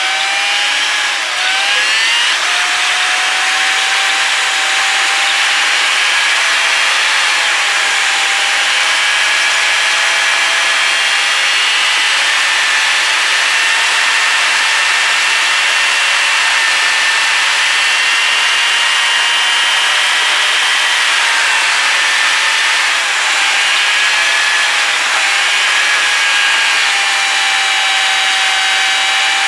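Car driving at speed, heard from inside the cabin: a steady high engine whine over road and wind noise. The pitch dips briefly near the start and eases down a little about two-thirds of the way through.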